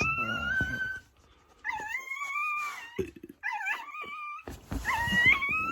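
Newborn puppies crying: four high, thin squeals, each about a second long, rising in pitch and then holding.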